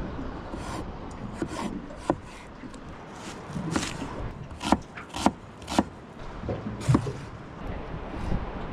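Knife strokes on a chopping board: a handful of sharp, irregularly spaced knocks with scraping between them.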